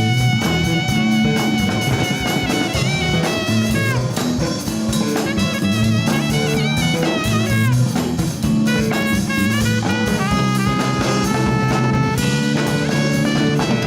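Latin jazz fusion band playing an instrumental tune, with drum kit and bass under a lead melody of held, wavering notes.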